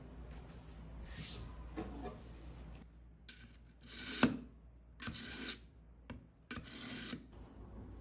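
A steel kitchen knife drawn through a handheld pull-through knife sharpener: a few separate scraping strokes of the blade through the slot, with a sharp click on one of them.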